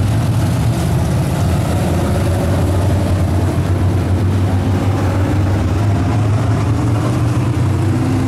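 Several USRA B-Modified dirt-track race cars' V8 engines running together on the track, a loud, steady low drone with faint rises and falls in pitch as the cars go by.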